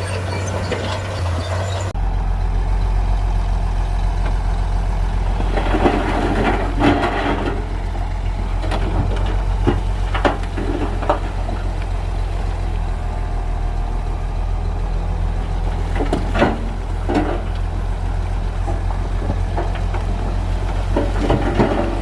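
Heavy bulldozer's diesel engine running with a steady low drone, with a burst of clanking and rattling about six seconds in and scattered single knocks later on, typical of the tracks and blade working stone.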